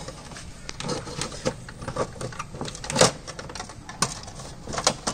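Scattered light clicks and taps from hands handling the plastic parts and wiring of a split AC indoor unit, with the sharpest knock about three seconds in.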